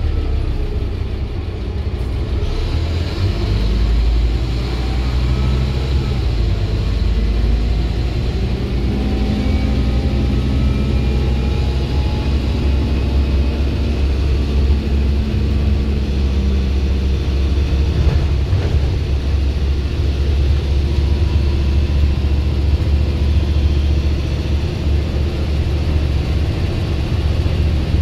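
Scania single-deck bus engine heard from inside the passenger saloon, with a deep steady rumble as the bus drives along. Through the first half its whine rises in pitch as it picks up speed, then it settles into a steady run.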